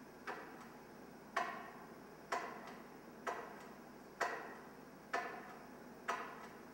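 Sharp knocks of something hard struck against a stone wall, about once a second, seven in all, each ringing out briefly in the stone room.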